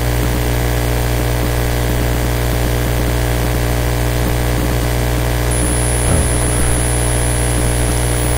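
Steady electrical mains hum and buzz on the recording, with many layered tones. A thin, high, steady whine joins it about five and a half seconds in.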